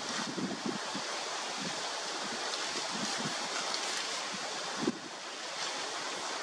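Steady outdoor hiss with scattered soft crackles and crunches of dry doum palm fronds as elephants feed and step among them, and one sharper knock about five seconds in.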